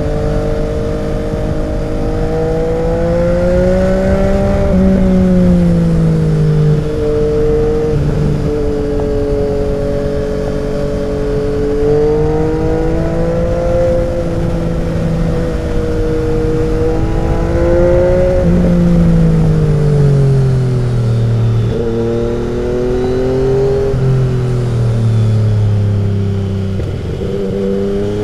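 Yamaha XSR900's three-cylinder engine running through an SC-Project 70s conical 3-into-1 exhaust while the bike is ridden through bends. The pitch climbs and falls with the throttle and is broken by several quick gear changes, with a long falling stretch as the bike slows about two-thirds of the way in.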